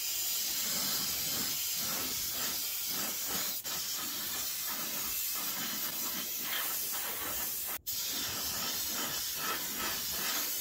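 Steady hiss of air blowing from a heat gun's nozzle, with a brief break about eight seconds in.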